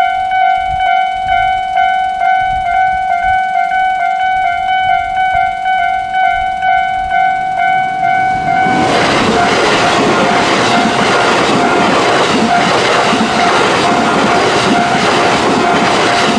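Japanese railway level-crossing electronic alarm bell ringing its shrill, rapidly repeating ding. About nine seconds in, a train starts passing over the crossing with loud rail and wheel noise, the alarm still ringing under it.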